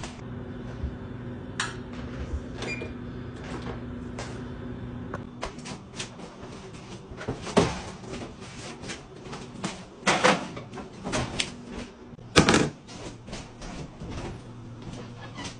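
Kitchen clatter of a gas range's oven door and metal baking pans being handled: a run of clicks and knocks with a few louder bangs in the second half, over a steady low hum.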